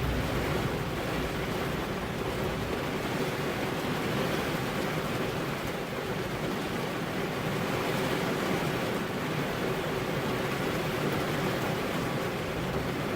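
Heavy rain falling steadily, an even hiss with no single drops or thunderclaps standing out.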